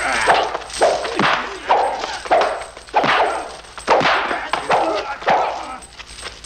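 Film fight sound effects: a quick run of punch and kick hits, each with a sharp shouted yell or grunt from the fighters, about one or two a second and thinning out near the end.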